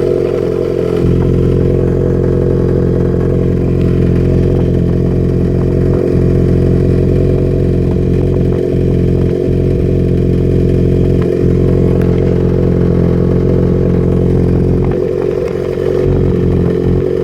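Engine running with a steady note that drops out briefly several times and stumbles more near the end: a misfire that the owner suspects may be a fuelling issue.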